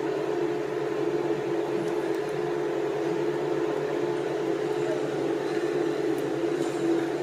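A steady machine hum with a constant pitch, unchanging throughout.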